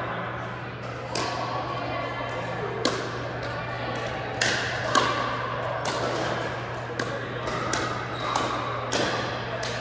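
Pickleball rally: about a dozen sharp, hollow pops of paddles hitting the plastic ball and the ball bouncing on the wooden court, coming quicker in the second half, each ringing briefly in the large hall.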